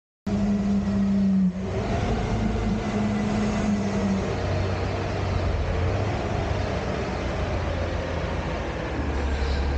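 Front-loader garbage truck's engine running as the truck drives slowly, a steady low hum that strengthens near the end, with a steady higher tone over it for the first four seconds.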